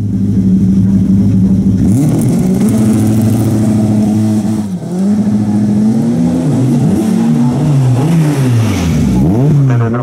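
Race car engine at full throttle on a hill climb, its pitch climbing hard and then dropping sharply again and again through gear changes. There is a brief lift about halfway through and deeper dips in revs near the end.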